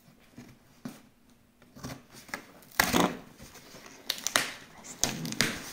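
Hands working the top of a cardboard shipping box, fingernails scratching at the cardboard and pulling at the packing tape: a few short scraping, tearing rasps, the loudest about three seconds in.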